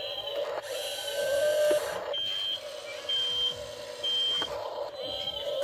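Remote-control toy excavator's small electric motors whining and gears buzzing as it swings its boom, with louder gear noise about a second in. In the middle its warning beeper gives three short high beeps about a second apart.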